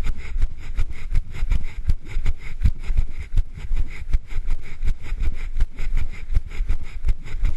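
A runner's footfalls on pavement, about three strides a second, coming through as regular thuds on a camera carried by the runner.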